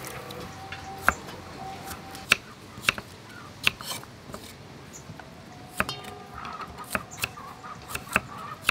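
Kitchen knife slicing young lotus root stems on a wooden chopping board: about eight sharp cuts at uneven intervals.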